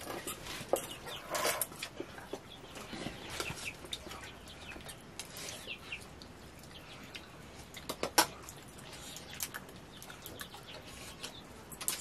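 Quiet eating sounds: scattered light clinks of a spoon against steel bowls, with a sharper pair of clinks about eight seconds in. Faint chicken clucking comes through in the background.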